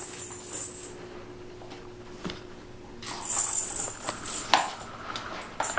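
A kittens' jingling cat toy being batted about: irregular bursts of bright metallic jingling, the strongest a little past halfway, among knocks and taps on a tile floor.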